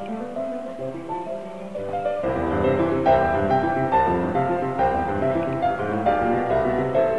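Instrumental background music: a sparse melody at first, with a fuller accompaniment and bass coming in about two seconds in.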